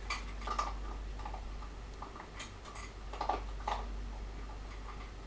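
Packaging being handled by hand: a scattering of light, irregular clicks and small rustles, about a dozen over a few seconds.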